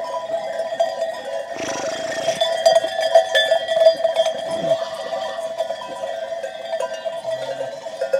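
Many small bells on a flock of sheep clinking and ringing together as the flock moves out, a continuous jangle.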